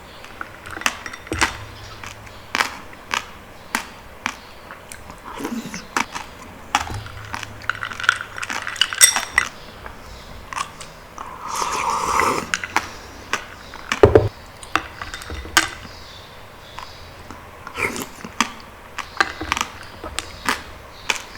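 Close-miked eating sounds of palm fruit (sea coconut) and passion fruit juice: irregular sharp clicks and clinks of a utensil against dishware, with wet mouth sounds. There is a longer, noisier wet sound about twelve seconds in and a louder knock about fourteen seconds in.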